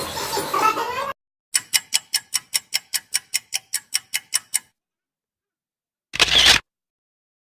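Camera shutter firing in a rapid burst of clicks, about five or six a second for roughly three seconds. Before it, a dense noisy sound cuts off about a second in, and after a pause a single short noisy burst of about half a second follows.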